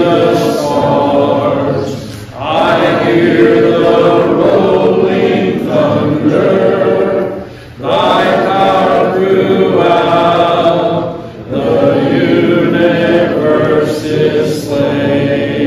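Hymn sung by a group of voices, led by one man's voice through the pulpit microphone, in long held phrases with short breaks for breath between lines.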